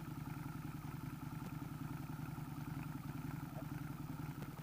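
A motorcycle-type engine idling steadily with a fast, even putter.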